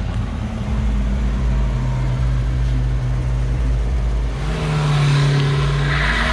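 Chevrolet Opala engine running loud at a steady pitch, revved to a higher held pitch about four and a half seconds in, then eased off near the end.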